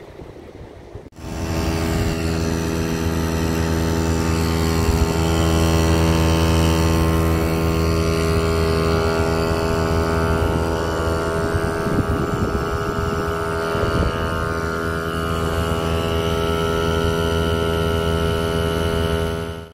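Air compressor running steadily, pumping air through a coiled hose into a homemade bait launcher's pressure chamber, starting about a second in with a steady hum that does not change in pitch.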